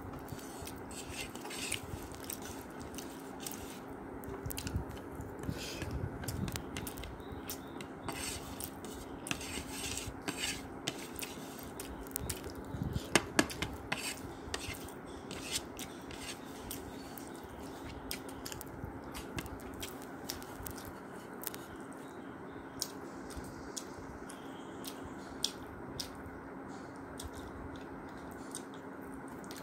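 Eating at a table: chewing, with scattered short clicks and clinks of plates and cutlery, the loudest cluster about halfway through. A steady low hum runs underneath.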